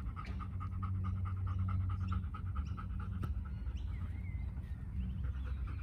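A dog panting quickly and evenly with its tongue out, winded from running around. The panting stops for about a second past the middle, then starts again.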